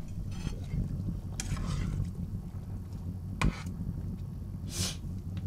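A steel pot of glass-noodle curry boiling on an induction hob, with a steady low rumble. A few brief scrapes and two sharp clicks, about three and a half and five seconds in, from a utensil against the pot.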